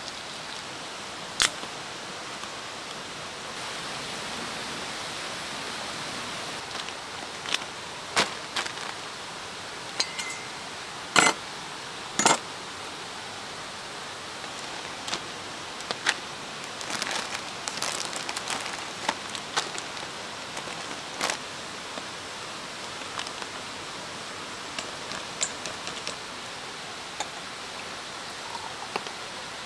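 A steady background hiss with scattered sharp clicks and clinks, several loud single ones in the first half and a quick flurry in the middle: camp cooking gear being handled, including a spoon in a metal mixing bowl.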